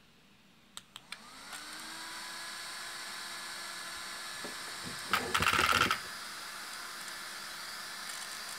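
A few plastic clicks as the battery connector is plugged into the RC car's wiring. A small electric cooling fan then spins up, rising in pitch, and settles into a steady whirr. About five seconds in there is a brief, louder rattling burst lasting under a second.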